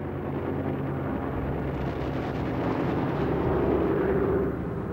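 Battle noise from a propeller fighter-bomber attack: a dense rumble of explosions and gunfire under the steady drone of the aircraft's engine, which grows louder about three seconds in.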